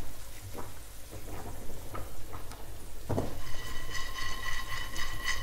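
A small frying pan of pine nuts and raisins knocking against a hob as it is handled and lifted, with a firmer knock about three seconds in. A steady high-pitched whine follows for the last couple of seconds.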